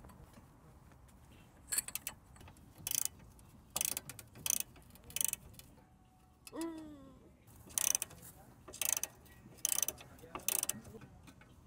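Socket ratchet clicking in short bursts as it backs out a crossmember bolt. About two thirds of the way through comes one brief, falling squeak.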